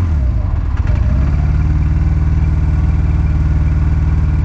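Honda motorcycle engine dropping back from a throttle blip and settling into a steady idle about a second and a half in.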